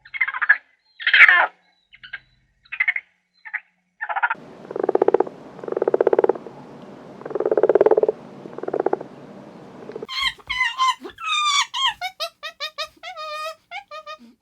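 A string of animal calls: a hen clucking for the first few seconds, then four or five low buzzy frog croaks, then a quick run of high whistled chirps from a bird, gliding up and down in pitch.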